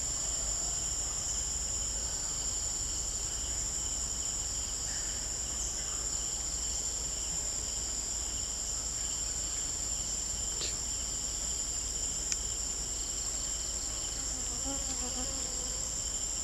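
A steady, continuous high-pitched drone of forest insects, unbroken throughout, with a single short sharp click about twelve seconds in.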